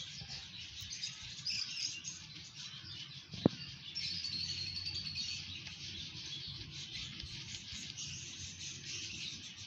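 Small birds chirping and twittering throughout, with a longer held call about four seconds in. A single sharp click about three and a half seconds in is the loudest sound.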